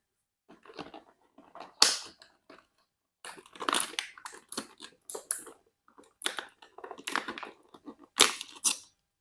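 Toy packaging being handled and torn open: irregular crinkling, crackling and tearing, with two sharper, louder rips about two seconds in and near the end.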